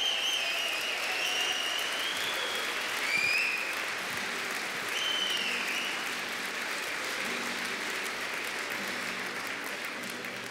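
Audience applauding. A few high gliding whistle-like tones sound over the clapping in the first half, and the applause slowly dies down toward the end.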